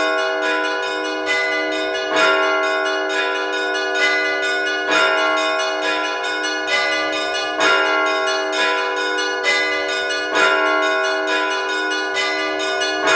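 Orthodox church bells rung by hand in a simple everyday pattern close to the Rostov tradition: a rapid repeating run of strokes on several bells, with heavier strokes about once a second over their long ringing tones.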